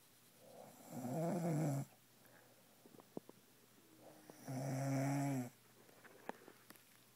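Two snores, each about a second long and about three and a half seconds apart, with a few faint clicks between them.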